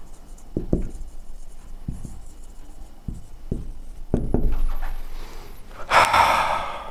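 A man's heavy breathing close to the microphone, with soft low thumps, ending about six seconds in with a loud rushing breath.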